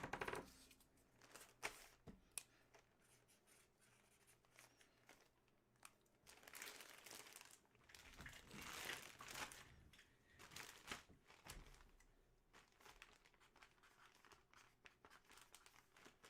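Faint handling noise: soft rustling and crinkling that comes in several short spells, with a few light clicks.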